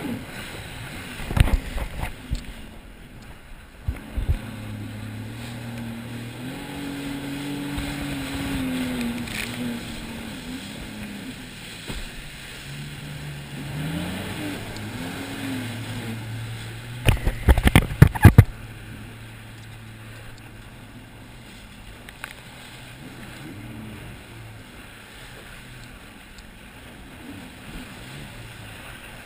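Sea-Doo personal watercraft engine revving up and down as it runs over waves, with water rushing past the hull. A cluster of loud knocks and splashes comes about seventeen seconds in, and the engine runs quieter after that.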